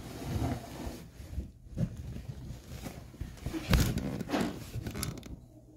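Handling noise of a phone being carried and moved in the dark: irregular rustling and soft bumps against its microphone, with a louder thump nearly four seconds in.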